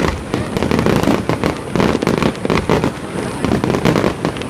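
Aerial fireworks going off in a dense run of quick overlapping bangs, many each second, with no pause.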